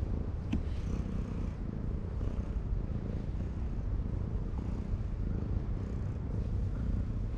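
Orange tabby cat purring steadily while being stroked, a low continuous rumble.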